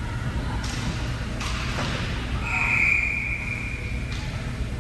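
A referee's whistle blown once, a steady shrill blast of about a second and a half, over the constant hum of an ice rink. A few sharp knocks echo through the arena before and after it.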